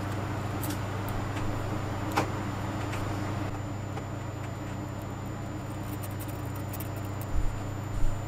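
Faint metal ticks and clicks from steel tweezers and a small wrench working among the valve springs of a miniature flathead four-cylinder engine, over a steady low hum. Two dull thumps come near the end.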